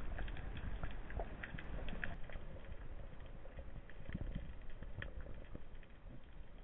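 Underwater ambience picked up by a submerged camera: a steady low water rumble with scattered crackling clicks throughout.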